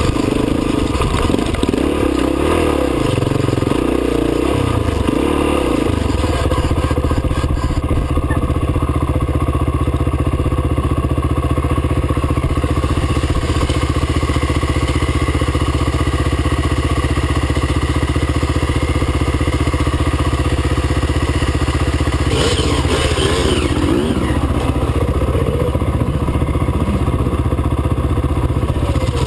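Trail motorcycle engine running loud, the revs rising and falling for the first few seconds and then held steady as the bike climbs a rocky lane. About three-quarters of the way through there is a short burst of clatter.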